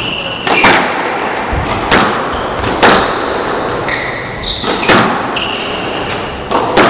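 Squash rally: the ball is struck by rackets and smacks off the court walls about once a second, each hit echoing in the enclosed court. Between shots come short high squeaks from players' shoes on the wooden floor.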